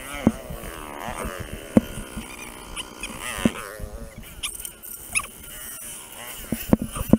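Enduro dirt-bike engines revving up and down unevenly on a rocky climb, with sharp knocks and clatter from the bikes riding over rocks.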